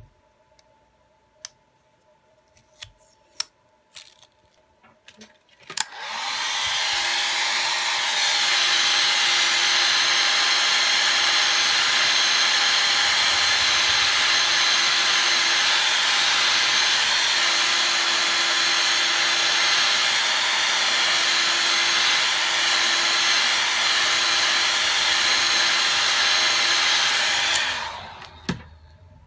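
Hot-air blower running steadily with a whooshing blow and a few fixed whining tones, starting about six seconds in and shutting off near the end, heating the cracked phone display to soften its adhesive for removal. Before it starts, a few light clicks of the phone's parts being handled.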